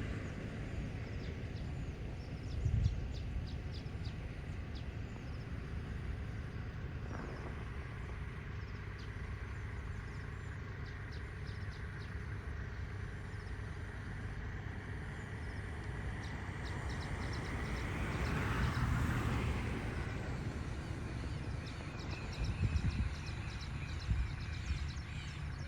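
Small birds chirping in quick runs of short, high notes that come and go in several spells, over a steady low rumble of road noise. About eighteen seconds in, a vehicle passes, swelling and fading.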